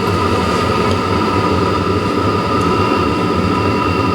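Chinese diesel heater running steadily on low power, its fuel pump at 2 Hz, burning a mix of 10W-30 engine oil and diesel: a steady rumble from the burner with a whine from the blower fan. At this low setting it is sustaining the burn on the oil mix.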